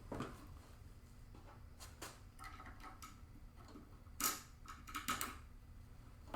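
Light, scattered clicks and taps from a screwdriver and small screws being handled while motherboard screws are driven into a mounting panel. The sharpest click comes about four seconds in, over a faint steady hum.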